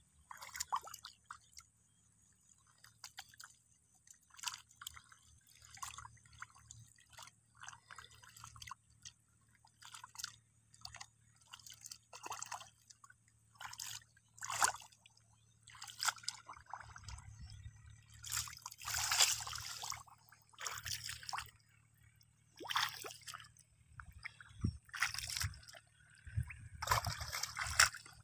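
Shallow muddy water sloshing and dripping around hands and bare legs as they grope in the mud and wade, in small irregular splashes, with louder sloshes in the second half.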